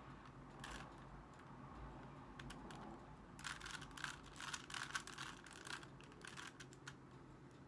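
Rubik's Cube being turned by hand during the last-layer moves of a solve: quick small plastic clicks of its layers rotating. A few scattered clicks, then a rapid run of clicks from about three and a half seconds in to six and a half seconds in.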